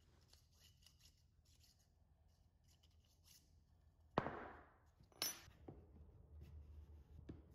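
Near silence for about four seconds, then two sharp knocks about a second apart and a few faint taps: a wooden drilling block being fitted over the end of a white oak slat.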